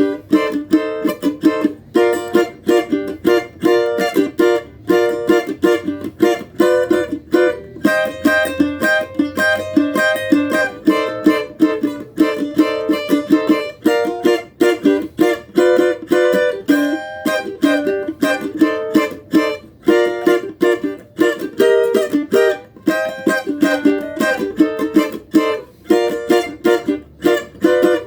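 A cavaquinho strummed in a fast, steady rhythm of chords, the strokes coming several times a second without a break.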